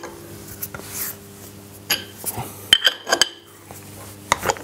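Steel spanner clinking against the clamping bolts of an Abene VHF-3 milling head as they are loosened: a few sharp metallic clicks and knocks in small clusters, about two, three and four seconds in.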